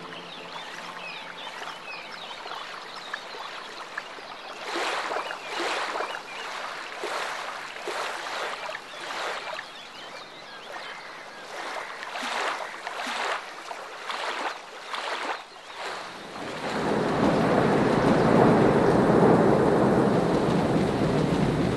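Water lapping, then a canoe or kayak paddle splashing in repeated strokes, one or two a second, for about ten seconds. About sixteen seconds in, the loud steady rush of thunderstorm rain takes over.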